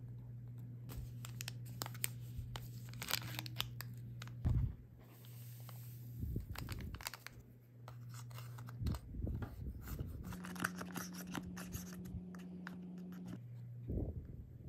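A small plastic spoon scrapes and clicks against a plastic Popin Cookin candy-kit tray as powder is stirred into water, with crinkly rustling as a powder packet is torn open. The clicks and scrapes are short and irregular, with one louder knock about four and a half seconds in.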